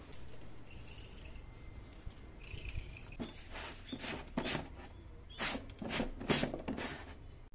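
Hard plastic sweet jars and their lids being handled on a wooden shelf: a run of irregular knocks, taps and rustles. Before that come two short high-pitched chirping calls from an animal.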